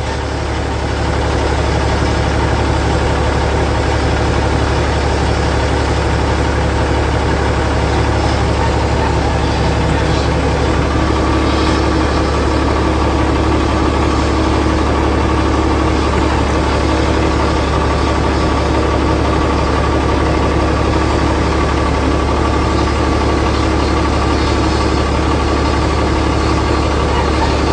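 Helicopter turbine engine and rotor running steadily on the ground, a dense unchanging whine and hum at idle before lift-off.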